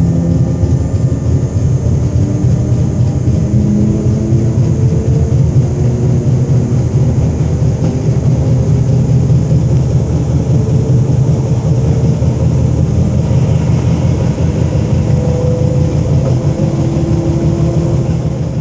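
Z 20500-series (Z2N) double-deck electric train running: a loud, steady low rumble with faint tones from its traction equipment that shift in pitch, beginning to fade right at the end.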